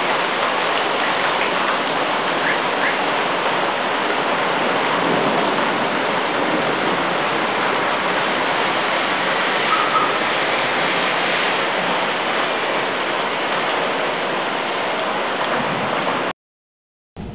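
Heavy rain pouring down in a storm, a steady, even hiss that cuts off suddenly near the end.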